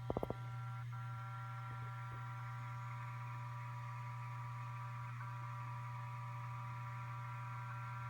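Seagate ST8000DM002 8 TB hard drive buzzing at idle: a steady low hum with several higher steady tones above it, which drop out briefly about a second in and again around five seconds in. A quick run of four or five clicks comes right at the start.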